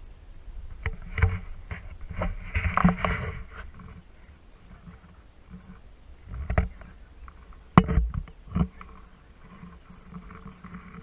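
Water splashing and sloshing around a waterproof action camera, with several sharp knocks of the camera bumping as it is handled at the water's edge. There is a burst of splashing about two to three seconds in, and a few more knocks later.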